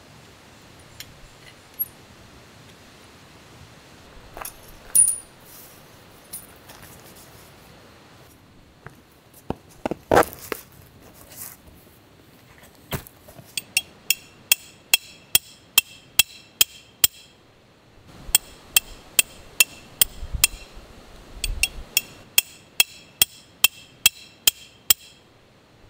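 Metal tent stakes being hammered into gravelly ground: a few scattered knocks, then in the second half two runs of quick ringing metallic strikes, about three a second, with a short break between them.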